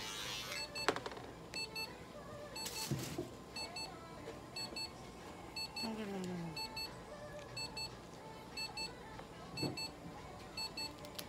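Red-light laser therapy unit beeping steadily during treatment: short high beeps, often in pairs, repeating close together. A brief rustle of handling about three seconds in.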